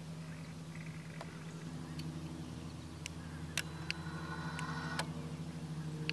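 Small plastic button clicks, about eight scattered through, from pressing the learn button on a gate-opener control board and the buttons of a key-fob remote while pairing it, over a steady low hum.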